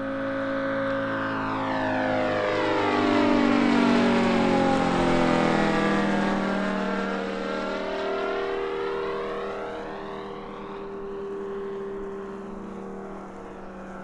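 Moki 250 five-cylinder radial engine of a large-scale RC Lavochkin La-7 warbird on a low flyby. The engine note swells and drops in pitch as the plane passes, about two to three seconds in, then fades as it climbs away.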